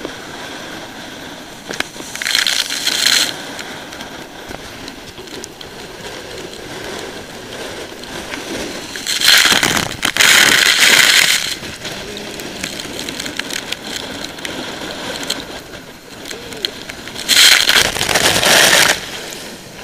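Storm waves breaking over a pier, with surf and wind washing steadily. Three times, about two seconds in, around nine to eleven seconds and near the end, a wave's spray and water sweep over the camera in a loud hissing rush.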